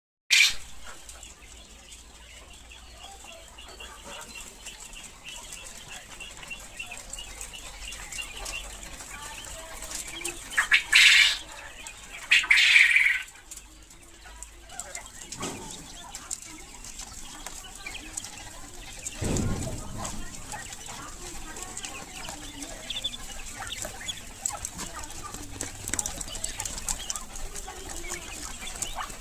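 Quail in a pen: a steady patter of small chirps and scratching clicks, broken by two loud bursts of wing-flapping about ten and twelve seconds in, and a low thump near twenty seconds.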